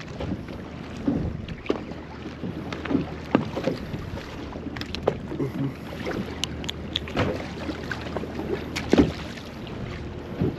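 Wind and water noise on an open boat, with scattered sharp clicks and knocks as a small yellowtail snapper is unhooked by hand and let go over the side.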